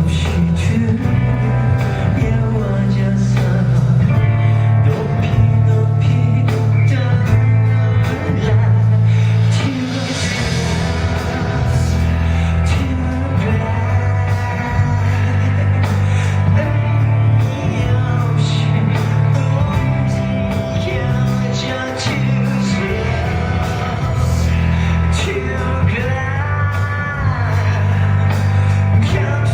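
Live rock band playing a song at full volume, with a heavy bass line, electric guitar and singing.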